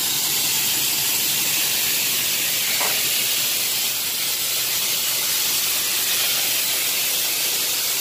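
Steady loud hiss that does not change, most of it high-pitched, with a brief faint gliding sound about three seconds in.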